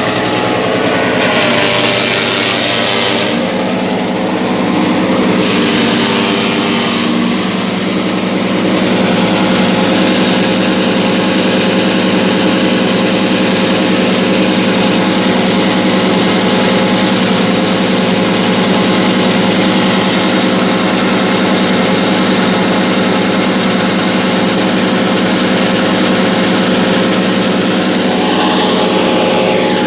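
Wood chipper-shredder machine running loudly and steadily on its engine, the sound shifting a few times in the first eight seconds and then holding even.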